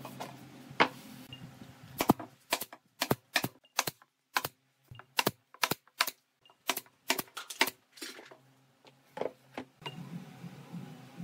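Pneumatic brad nailer firing nails into pine boards: a quick run of sharp snaps, about two or three a second, that stops, followed by one last shot near the end.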